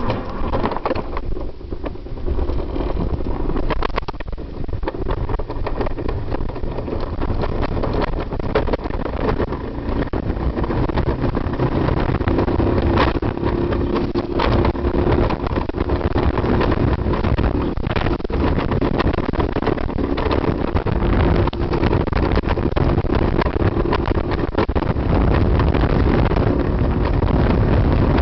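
Summer bobsled running fast down its curved trough track, ridden without braking: a continuous rumble of the sled on the track, with wind on the microphone and a few sharp knocks. It grows a little louder about halfway through.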